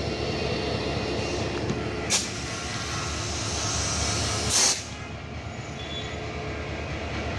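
US-built EMD diesel-electric locomotive's engine running with a steady low rumble. Two short bursts of noise cut across it, a brief one about two seconds in and a louder one near the middle.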